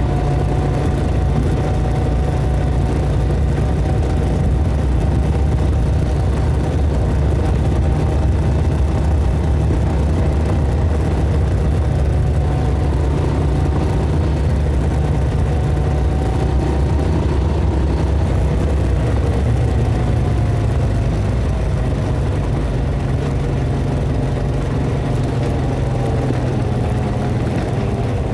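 ATV engine running at a steady pace under a heavy low rumble, with a faint engine whine that dips and rises slightly about two-thirds of the way through.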